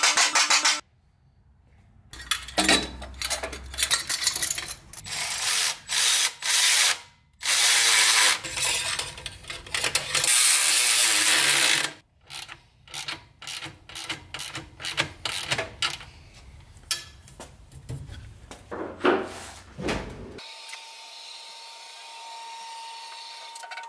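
Ratchet tightening the bolts of a turbo exhaust crossover tube: runs of fast ratcheting clicks at first, then separate strokes about one or two a second, stopping about 20 seconds in.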